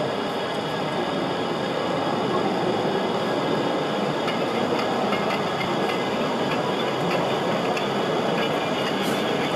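Model diesel locomotive running slowly along the layout track: a steady rumble of wheels and motor, with a few light clicks near the end.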